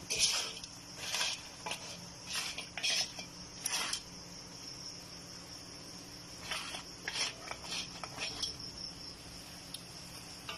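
A wooden spatula scraping and tossing saucy crabs in a metal pan: a run of short scrapes in the first four seconds and more about seven to eight seconds in. A steady high-pitched trill runs underneath throughout.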